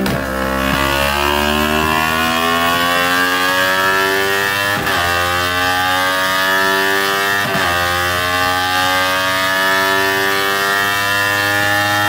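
Yamaha R3's 321 cc parallel-twin engine and exhaust running hard on a dyno, its pitch climbing slowly and steadily as the rear wheel spins up toward top speed. The note is broken by two short gaps, about five and seven and a half seconds in.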